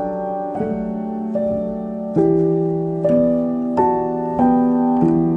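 Background piano music: slow, evenly paced notes, about one and a half a second, over held chords.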